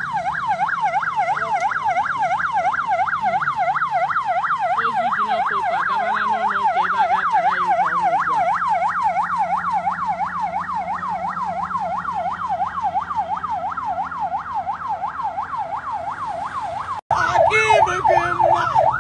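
Electronic vehicle siren in a fast yelp, sweeping up and down in pitch about four times a second. Near the end it cuts out briefly and comes back louder, with another siren pattern layered over it.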